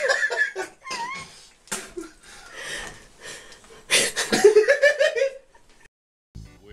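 A person laughing in bursts while a wet cat in a bathtub meows, with a short wavering mew about a second in and a longer, louder stretch of laughing and yowling from about four seconds in. The sound drops away at a cut about six seconds in.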